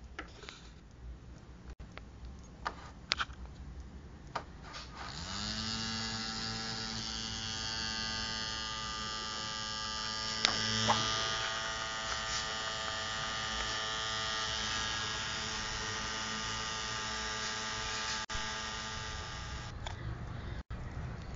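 Small USB mini fan's motor spinning up about five seconds in, running steadily with a hum, a whine and an airy hiss, then stopping near the end. A few sharp clicks of handling come before it starts.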